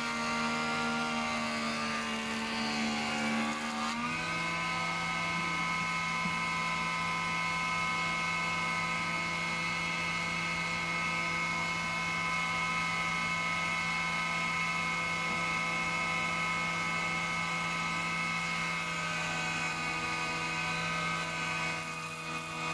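Surface planer running with a steady whine from its spinning cutter block while Sapele boards are fed across it; the pitch shifts about four seconds in and changes again near the end as the load on the cutter changes.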